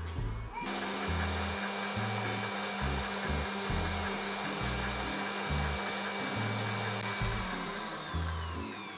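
Electric mixer whipping cream: its motor starts about half a second in with a steady whine, then winds down with falling pitch near the end.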